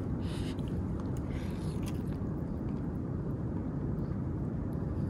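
Person eating ramen noodles with a fork: a few faint slurps and mouth sounds in the first two seconds, over a steady low background rumble.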